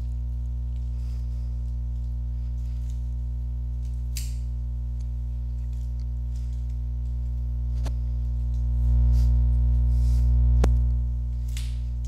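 Background instrumental music with steady, held low notes. It swells louder for about two seconds near the end.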